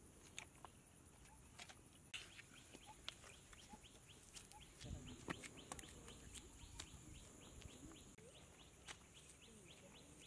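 Faint open-air ambience: birds calling, with a quick run of repeated high chirps in the second half, over a steady high insect hum and a few soft clicks.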